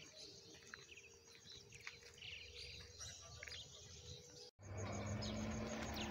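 Faint bird chirps over quiet outdoor background noise. About four and a half seconds in the sound drops out for an instant, and louder outdoor noise with a low steady hum follows.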